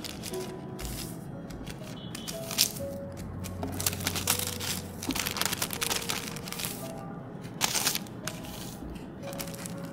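Soft background music with short sustained notes, over the crinkle and rustle of thin paper being folded around a sticker sheet by hand, with a few louder rustles in the middle.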